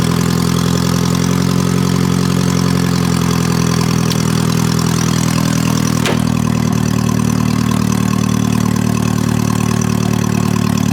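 Geo Metro engine idling steadily, just started after sitting dead for a long time. A single brief click about six seconds in.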